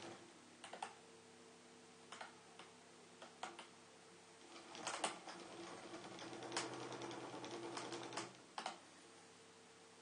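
Faint hum from the small motor of a string-wave toy as it spins its string loop, with a scatter of sharp clicks. The hum grows louder from about five seconds in and drops back just past eight seconds.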